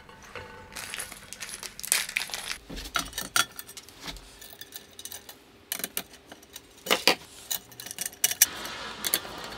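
Small metal screws and springs clinking and tapping as they are handled and fitted to the corners of a 3D printer's bed plate, with a scattered run of light clicks and knocks.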